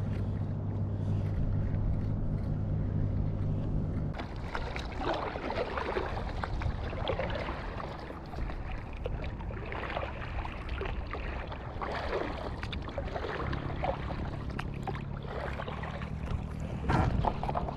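Paddle strokes splashing in seawater from a stand-up paddleboard, coming about every second or two. A steady low hum is heard for the first few seconds and comes back near the end.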